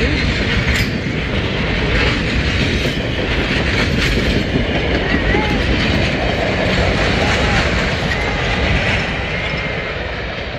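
Passenger train cars rolling past close by, their wheels clattering steadily over the rail joints. The sound eases slightly near the end as the last car goes by.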